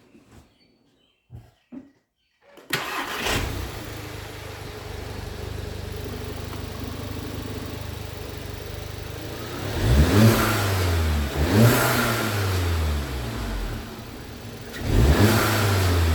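Volkswagen MK7 GTI's turbocharged 2.0-litre four-cylinder, breathing through a K&N drop-in air filter, starts about three seconds in after a few faint clicks and settles to a steady idle. It is then revved three times, each rise in pitch falling back to idle.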